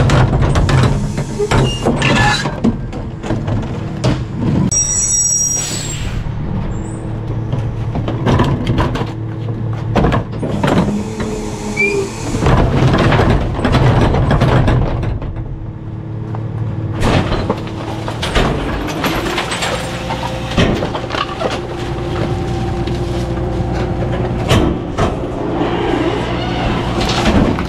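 Rear-loader garbage truck at work: the engine runs steadily while trash is thrown into the hopper and crunched by the packer, with repeated bangs and knocks throughout. A brief high squeal comes about five seconds in.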